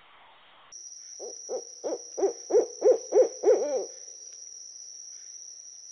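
An owl hooting: a quick run of about nine hoots, growing louder, starting about a second in and ending near the two-thirds mark. A steady high-pitched whine runs beneath it.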